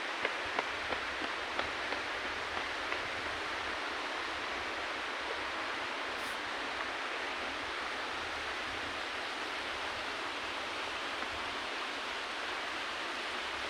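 Steady rushing of water, with a few light clicks in the first few seconds.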